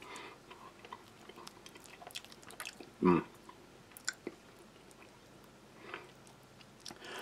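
A man chewing a mouthful of rehydrated reindeer stew of mashed potato and meat. Quiet, soft mouth sounds with small clicks, and one short louder sound about three seconds in.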